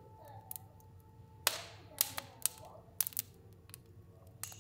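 Wood fire burning in a stove, crackling with a handful of sharp pops; the loudest comes about a second and a half in and trails off in a brief hiss.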